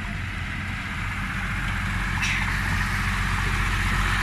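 Heavy vehicle's engine running steadily and growing slightly louder, with a brief high-pitched sound about two seconds in.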